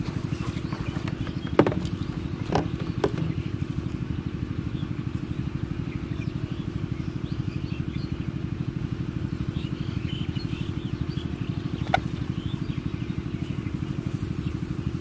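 A small engine running steadily at constant speed, a fast even low pulsing throughout. A few sharp clicks and knocks come through over it, three in the first few seconds and one near the end.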